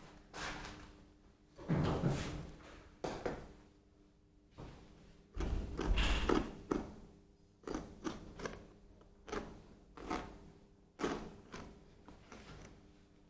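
Hand instruments working a hardened plaster leg cast: a string of irregular knocks and scrapes, roughly one a second, with a longer scraping stretch about halfway through.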